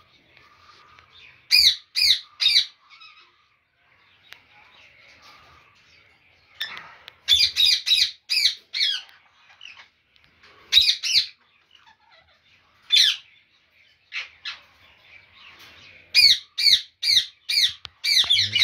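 Ringneck parakeets squawking: harsh, rapid calls in short runs of three to six, the runs coming every few seconds.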